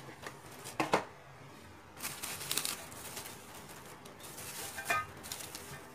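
Rustling and crinkling of packaging being handled, with a sharp tap a little under a second in and two longer stretches of rustling later on.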